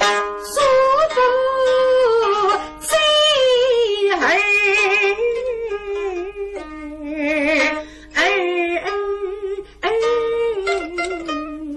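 A woman singing a Suzhou tanci (pingtan) aria in long, sliding, wavering held notes, accompanied by plucked pipa and sanxian.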